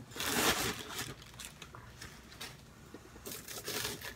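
A large corrugated cardboard shipping box being opened by hand, its flaps pulled apart and folded back with scraping, crackling cardboard noise. The loudest burst comes in the first second, with more rustling near the end.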